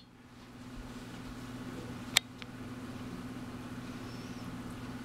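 Quiet room tone with a steady low hum, broken by one sharp click about two seconds in.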